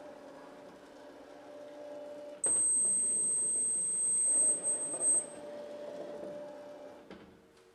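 Small wheeled robot's motors whirring as it drives across the arena floor. A loud, steady, very high-pitched tone sounds for about three seconds in the middle and cuts off suddenly.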